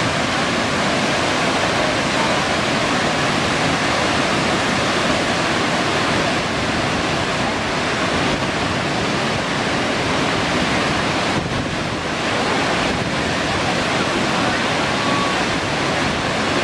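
Steady, loud rush of Burney Falls, a tall waterfall pouring into its plunge pool, dipping slightly for a moment about twelve seconds in.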